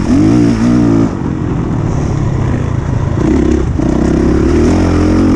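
Honda CRF450R's single-cylinder four-stroke engine revving under throttle while ridden. It backs off about a second in and picks up again past the three-second mark.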